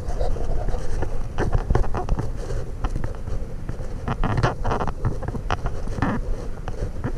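Wind buffeting the microphone with a steady low rumble, under irregular splashes and knocks of a kayak paddle dipping in the water.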